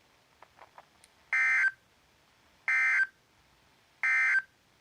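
Three short, identical bursts of NOAA Weather Radio's EAS (SAME) digital data tones, about a second and a half apart: the end-of-message code that closes the required weekly test.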